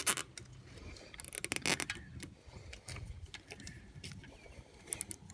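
Irregular small clicks and rattles of plastic zip ties being handled and threaded around a headrest support rod, with a quick run of clicks about a second and a half in.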